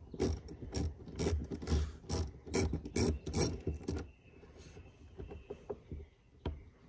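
Hand ratchet wrench clicking in quick back-and-forth strokes as it turns a bolt set in plastic. The clicking stops about four seconds in, leaving a few faint clicks.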